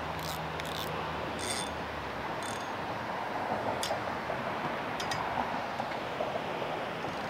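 A steady rushing outdoor noise with a few light clicks and ticks as a spinning rod, reel and fishing line are handled.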